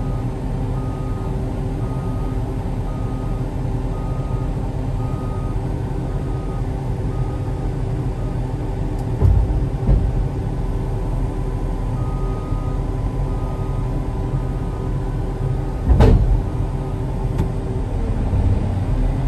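Diesel engine of a Caterpillar 657 wheel tractor-scraper running steadily under load, heard from inside the cab, with a short beep repeating just over once a second that stops for a while midway and comes back. A few heavy knocks break through, two about halfway and a louder one near the end.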